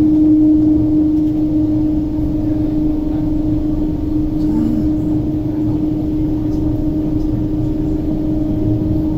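MTR East Rail Line SP1900 (IKK-train) electric train running, heard from inside the carriage: a low rumble under a steady hum that holds one pitch and cuts in sharply at the start.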